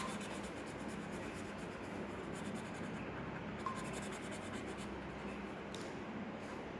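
A pen scratching and rubbing on paper as it draws and shades, with a couple of light ticks.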